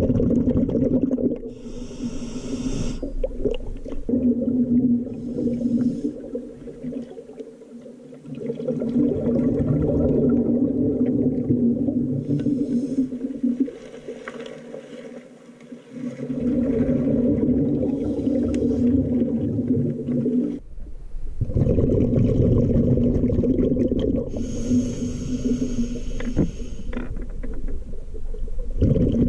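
Scuba diver breathing through a regulator underwater: long stretches of rumbling exhaled bubbles with a low hum, broken by quieter pauses and a few short hisses.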